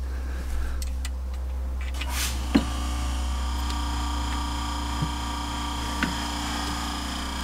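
A few light clicks of a hand tool on metal fasteners in a personal watercraft's engine bay, over a steady low hum. From about two and a half seconds in, soft sustained background music chords come in underneath.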